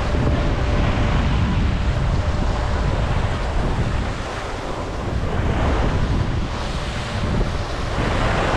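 Wind buffeting the microphone of a camera carried by a moving skier, with the hiss and scrape of skis sliding over packed, groomed snow. The noise swells and eases as the skier turns.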